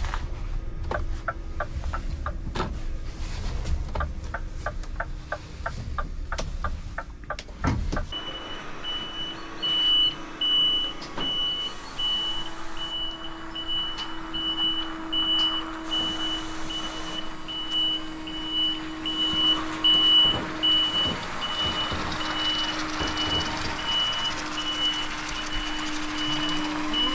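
Electric refuse truck's side bin lifter at work: the hydraulic pump hums steadily, a warning beep repeats about twice a second, and knocks and rattling come as a wheelie bin is lifted and tipped. For the first eight seconds or so there is instead a low rumble with a rapid run of clicks.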